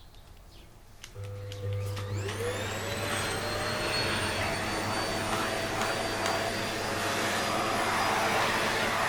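Vacuum cleaner switched on about a second in: its motor whine rises in pitch for a second or two as it spins up, then it runs steadily.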